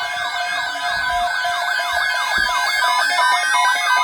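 Warbling electronic tones on the radio feed: fast, repeated up-and-down pitch sweeps over interrupted steady beeps, with one tone gliding slowly upward from about halfway through.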